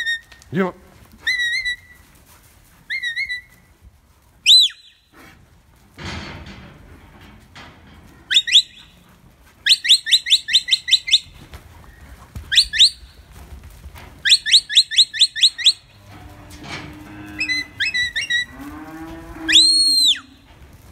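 Herding whistle commands to a sheepdog: short single notes, two quick runs of rapidly repeated blasts and one long arching note near the end. Aberdeen Angus cattle moo low, twice, in the second half.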